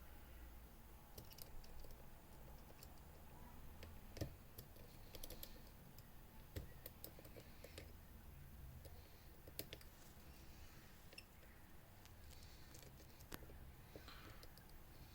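Faint, irregular clicks and light scraping of lock picks working the pins of a five-pin Fontaine pump lock, with a sharper click about four seconds in.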